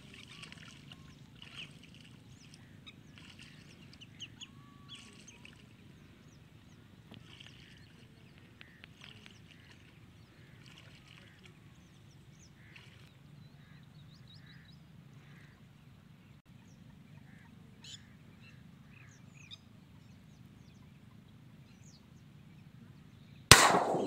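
Faint bird chirps and calls over a low steady rumble, then near the end a single loud 12-bore shotgun shot with a short echoing tail.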